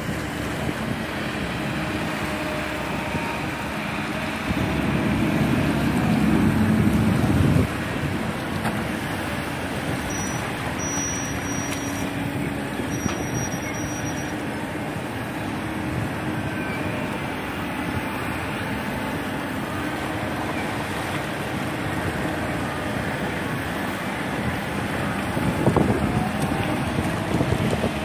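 Kobelco long-arm excavator's diesel engine running steadily as the machine digs and swings. It grows louder for about three seconds starting some four and a half seconds in, then drops back abruptly.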